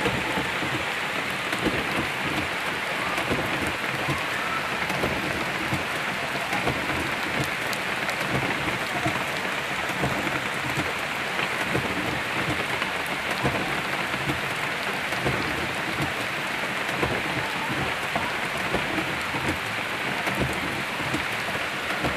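Heavy rain falling steadily on trees and wet gravel ground, a constant dense hiss of many drop hits.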